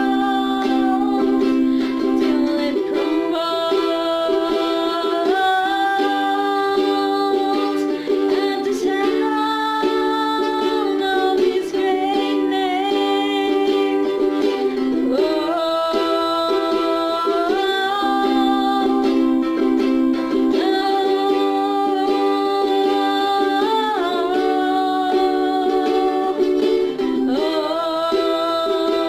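Music: held chords that change every few seconds under a melody line that slides between notes.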